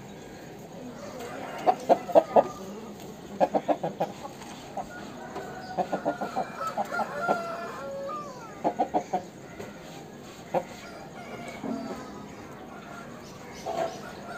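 Aseel roosters clucking in short quick bursts of three to five clucks, several times over.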